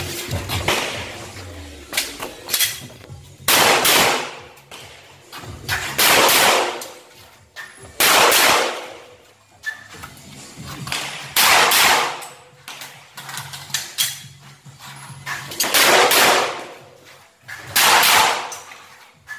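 Pistol shots fired one at a time, about half a dozen loud reports two to four seconds apart with fainter shots between them. Each report has a ringing tail that dies away over about a second under the range roof.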